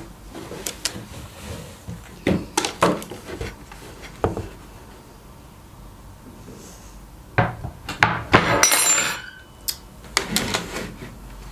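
Dishes, a mug and a wooden serving board knocking and clattering as they are lifted and moved, with a plastic box being handled. The sound comes as scattered short knocks, with one longer scraping clatter about three-quarters of the way through.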